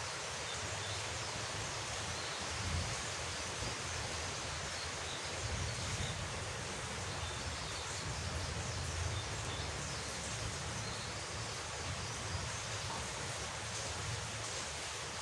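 Steady rain falling, an even hiss over a low rumble, with a few faint short high chirps.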